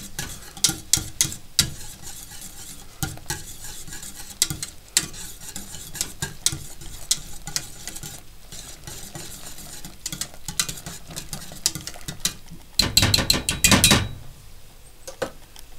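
Wire whisk stirring a flour-thickened sauce in a stainless steel pot, its wires clicking and scraping against the metal. About 13 seconds in there is a brief run of fast, louder clattering.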